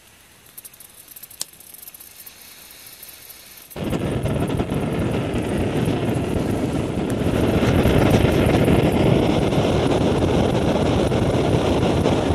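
Portable gas camping stove lit with a click and then burning with a steady rushing roar, starting abruptly about four seconds in and growing a little louder partway through, as water is heated for coffee.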